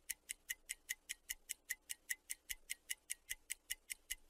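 Quiet ticking-clock sound effect, even ticks about five a second, marking the thinking time left for the listener to translate the sentence.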